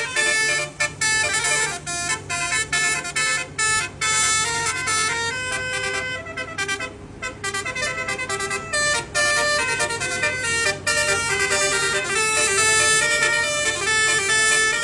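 Telolet musical air horn on a Hino 500 truck playing a quick tune of stepping notes, with the truck's engine running underneath. The tune thins out briefly about six to seven seconds in, then picks up again.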